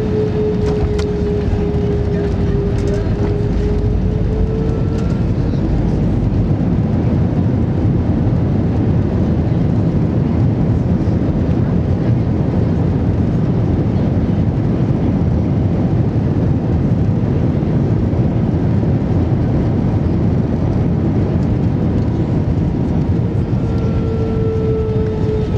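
Airbus A320 cabin noise while taxiing: a steady low engine and airframe rumble, with a humming engine tone that fades out about five seconds in and comes back near the end.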